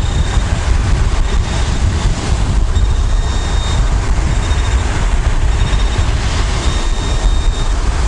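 Strong wind buffeting the microphone, with storm surf, as a constant low rumble. Over it a thin high tone sounds several times in short stretches: the signal tones of a Minelab Equinox 800 metal detector sweeping over a target.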